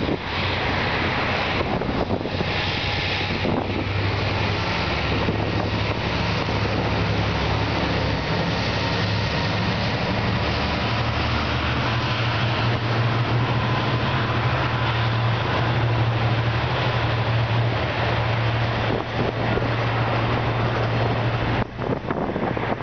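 Diesel-electric locomotive hauling a passenger train past, its engine giving a steady low drone over the rumble of the carriages on the track.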